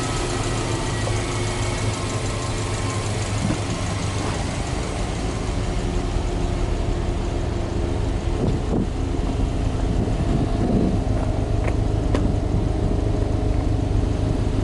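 Subaru Impreza WRX STI hatchback's turbocharged flat-four (boxer) engine idling steadily, a little louder in the second half as the quad exhaust tips come close.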